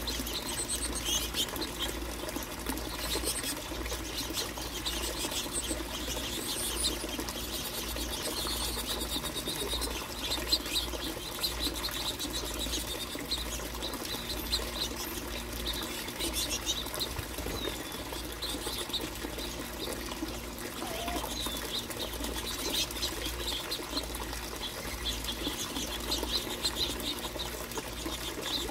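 A flock of finches chirping and twittering without pause: many short, high chirps overlapping.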